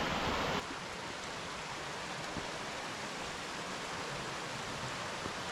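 Steady rushing of a creek's water over cascades and falls, a constant even hiss that steps down to a slightly lower level about half a second in.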